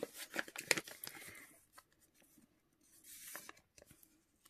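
Paper rustling and crackling as a small paper envelope is handled, with a dense run of crinkly clicks in the first second or so and a softer rustle about three seconds in.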